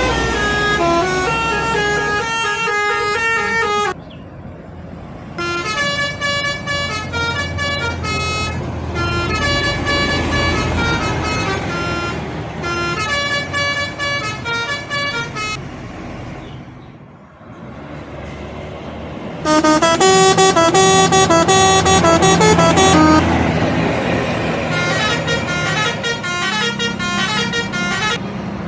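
Indonesian bus telolet horns, sets of musical air horns playing quick tunes of stepped notes over the low running of the bus engines, in several separate passages with abrupt changes between them.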